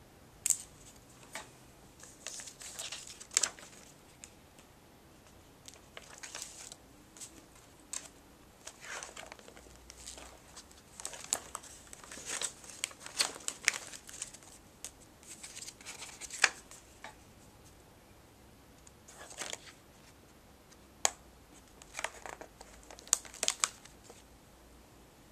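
Stiff collaged sketchbook pages being turned by hand: paper rustling and crinkling in irregular bursts, with sharp flicks as each page falls, separated by quiet pauses.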